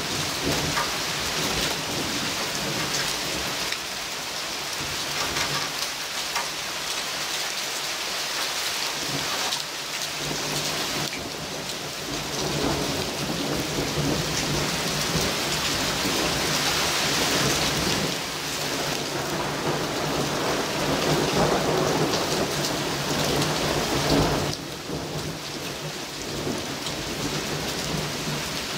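Heavy thunderstorm rain pouring steadily, with a long roll of thunder that swells about twelve seconds in and drops away near the end.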